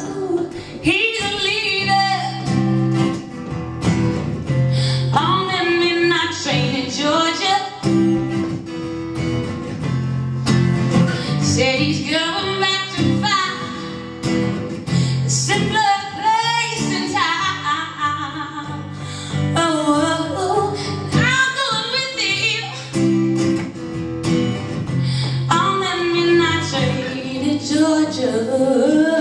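A woman singing live to acoustic guitar, her sung phrases over steady strummed chords.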